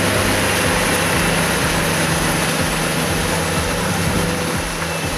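Tractor engine running steadily as the tractor ploughs a flooded rice paddy on steel cage wheels.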